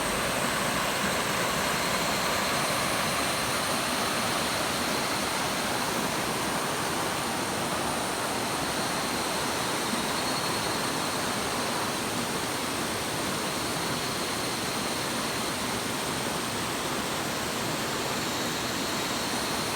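Mountain stream water rushing steadily over rocks, an even hiss that cuts off suddenly at the end.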